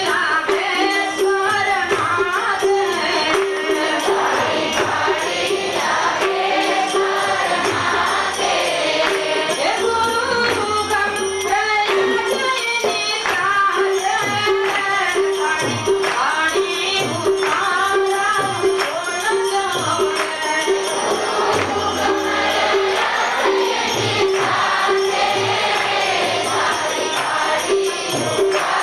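A Gujarati devotional song (bhajan) sung with a drum keeping a steady beat and metal hand percussion.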